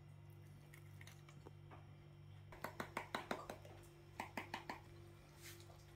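Spice shaker shaken over raw fish in a glass dish: a quick run of about eight rattling taps, then a shorter run of about four.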